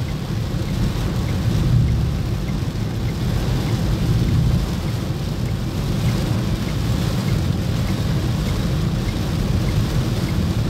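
Very heavy rain beating on a car's roof and windscreen, heard from inside the cabin, over a steady low rumble of the car driving through water lying on the road.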